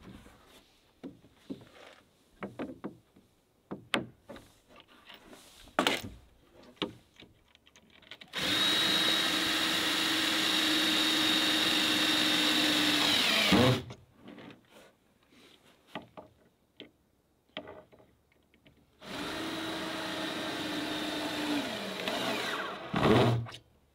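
Power drill working on a wooden platform's framing. It runs steadily twice, about five seconds from around eight seconds in and again for about three seconds near the end, its whine sinking each time it stops. Scattered knocks on wood come in between.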